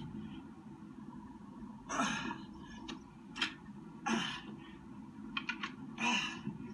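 A man breathing out hard in short bursts, about five times, from the effort of dumbbell burpees and presses. A few quick short clicks sound between the last breaths.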